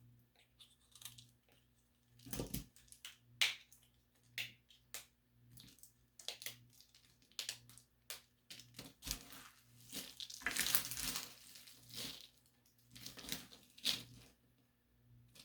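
Irregular crunching and crackling of something brittle being crushed close to the microphone, in short separate bursts with a longer, denser crackle about ten seconds in.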